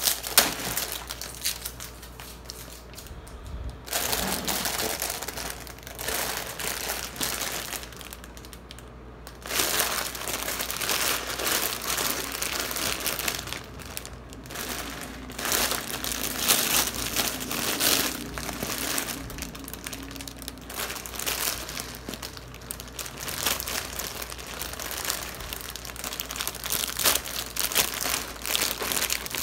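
Plastic outer wrapper of a Nongshim Shin Ramyun five-pack crinkling as hands squeeze and turn the pack over. The crinkling is irregular, with quieter spells in the first ten seconds and busier, louder crinkling from about ten seconds in.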